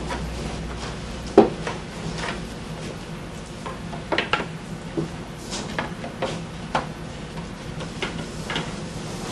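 Thin wooden slats of a paper lamp shade's mould clicking and knocking against each other as they are handled, with one sharp knock about a second and a half in and a run of lighter clicks after it.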